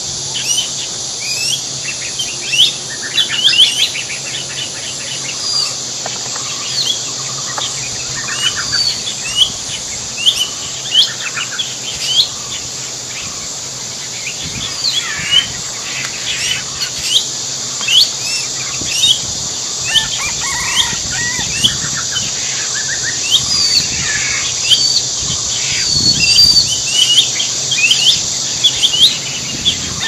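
A chorus of small birds chirping: many short rising chirps throughout, with a few quick trills, over a steady high hiss.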